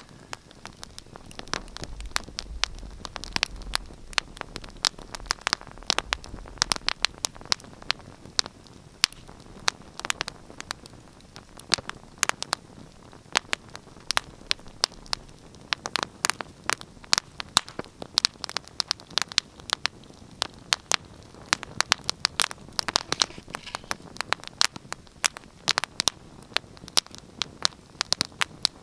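Wood fire crackling in a fireplace: irregular sharp pops and snaps, several a second at times, over a soft hiss.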